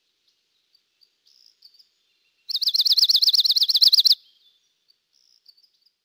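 Dark-eyed junco singing: one fast, even trill of about fourteen identical high notes lasting under two seconds, with faint high chirps before and after it.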